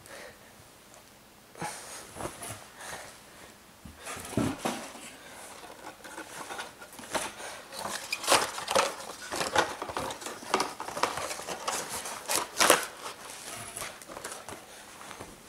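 Plastic bag crinkling and a box being handled: a run of irregular rustles and light knocks, sparse at first and busiest in the second half.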